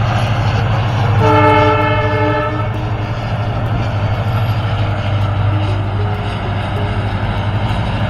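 WDP-4D diesel locomotive, an EMD two-stroke, running steadily as it hauls a passenger train past, sounding its horn once for about a second and a half, a little over a second in.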